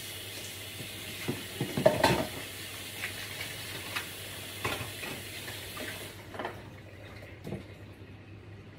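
Water running steadily with dishes and utensils knocking and clattering. The running water stops about six seconds in, and a few knocks follow.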